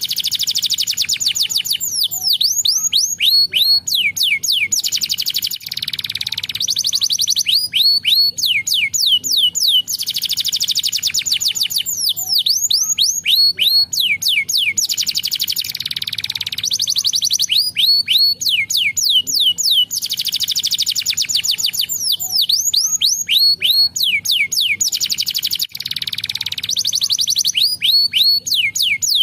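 Domestic canary singing continuously. Runs of fast, downward-sweeping whistled notes alternate with dense, buzzy rolling trills, phrase after phrase.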